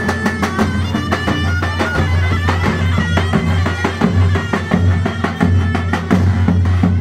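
Davul and zurna playing a lively folk tune: the zurna carries a wavering, ornamented melody over quick, even davul beats.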